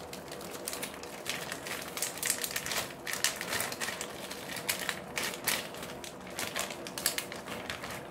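Plastic packet of thick fresh udon noodles crinkling and crackling as it is opened and the noodles are pulled out, in a run of irregular rustles and clicks.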